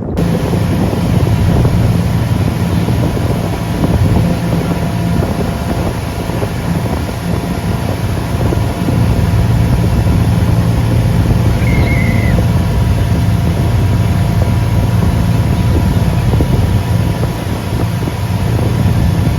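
Motorboat engine running under way, with wind rushing over the microphone.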